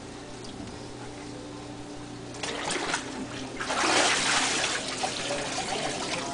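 Water splashing and sloshing in a baptismal tank as a person is immersed backwards under the water and raised again. The splashing starts about two and a half seconds in, with the loudest rush of water about four seconds in.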